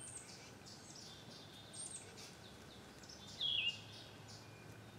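Outdoor ambience with faint, repeated high bird chirps over a low steady hum. One louder bird call, falling in pitch, comes about three and a half seconds in.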